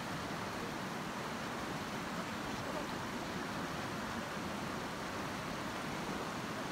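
Steady rush of a shallow river flowing over stones.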